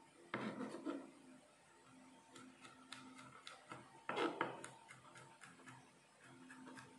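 Quiet knocks and clicks of a chef's knife cutting carrot on a plastic cutting board, with a louder cluster of cuts about four seconds in.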